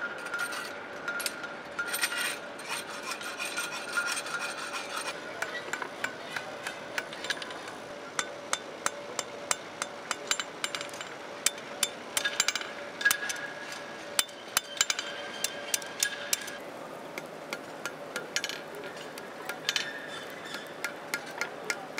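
Blacksmiths' hammers striking hot steel on anvils while forging tongs: many sharp blows in an irregular, overlapping rhythm, densest in the middle, over a steady hum.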